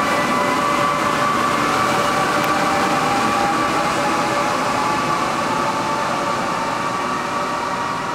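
Taiwan Railways Tze-Chiang express electric train pulling away along an underground station platform. Its running noise and a few steady whining tones fade slowly as the last car moves off.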